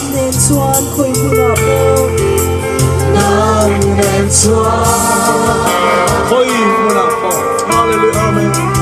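A group singing a gospel worship song over a band, with long steady bass notes and regular cymbal ticks.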